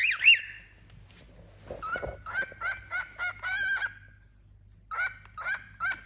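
Cockatiels chirping: two loud rising chirps at the start, then a quick run of short whistled chirps, about three a second, a short pause, and a few more near the end.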